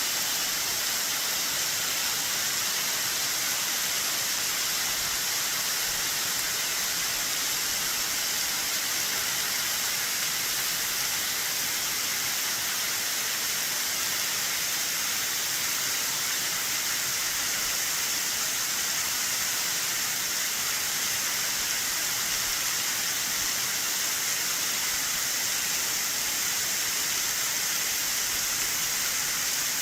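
Waterfall cascading off a cliff at high spring run-off flow: a steady, even hiss of falling and splashing water.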